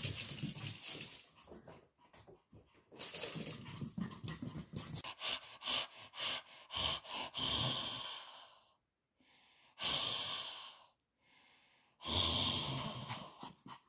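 Two Pomeranians at play: quick clicks and scrabbles of paws on a wooden floor, and bursts of breathy huffing and panting, the loudest one near the end.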